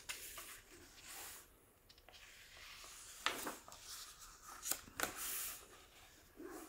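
Paper pages of a thin paperback book being turned and pressed flat by hand: a few short rustles and flicks of paper, the loudest about three and five seconds in.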